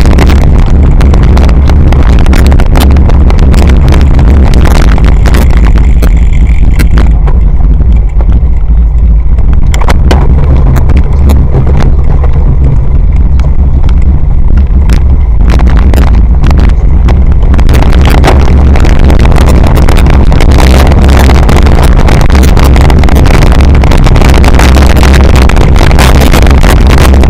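Heavy wind buffeting and jolting rattle picked up by an action camera on a cyclocross bike ridden fast over bumpy grass: a constant deep rumble with many sharp knocks. The highs thin out for a few seconds in the middle, then the rattle picks up again.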